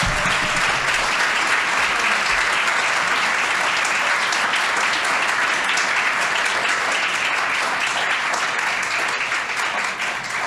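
Audience applauding: steady clapping from a seated crowd, starting to thin out near the end.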